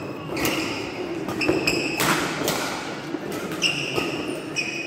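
Badminton rally: the sharp smacks of rackets hitting the shuttlecock several times, with short high squeaks of shoes on the court floor, over background crowd chatter in a large echoing hall.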